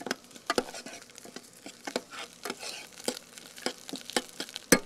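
Spoon stirring and scraping arborio rice in a hot saucepan with a light sizzle, the rice toasting in olive oil for risotto; the spoon clicks irregularly against the pan, with a quick run of sharper clinks near the end.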